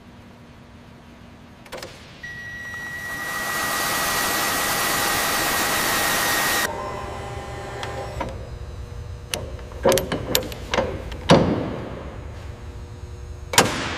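An electric motor whirs with a steady high whine, swelling in level for about four seconds and then cutting off abruptly. A run of sharp metallic clicks and clanks follows, two of them louder near the end.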